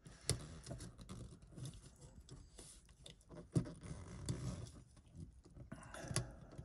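Utility knife blade cutting around a hole in foil-faced sound-deadening mat, a faint run of irregular scratches, crinkles and small clicks, with one sharper click about three and a half seconds in.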